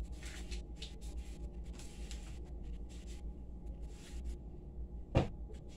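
Kitchen handling noises: a few short rustling scrapes in the first couple of seconds over a steady low hum, then one sharp knock about five seconds in as she works at the counter and an upper cupboard.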